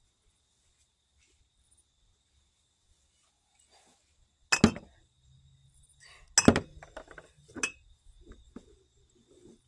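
Glass pint canning jars clinking as they are handled and scooped full of cut sweet corn kernels. There are two sharp clinks about four and a half and six and a half seconds in, the second the loudest, then several lighter knocks.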